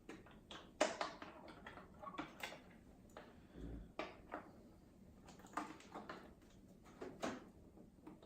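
Irregular light clicks, taps and knocks of hardware being handled: the power supply, its screws and cables being worked on inside an opened 27-inch iMac. The sharpest knock comes about a second in.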